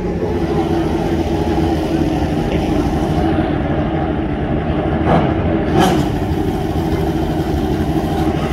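Drag-racing motorcycle engines running at the strip, with two sharp cracks about five and six seconds in.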